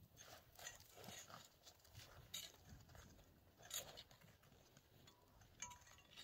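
Faint, scattered clicks and rustling at irregular intervals, with a couple of sharper clicks in the middle.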